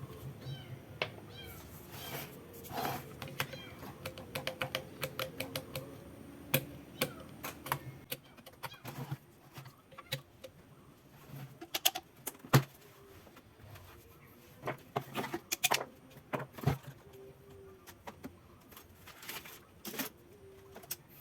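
Irregular clicks and taps of tools and metal parts being handled during repair work on an electric fan, dense over the first half and more scattered later.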